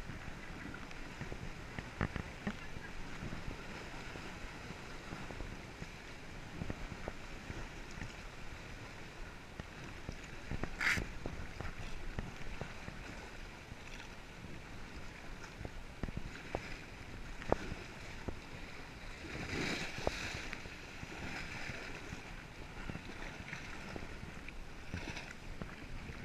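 Kayak paddle strokes splashing and dripping, with water lapping against the hull. Scattered sharp clicks and knocks run through it, and a louder splash comes about two-thirds of the way in.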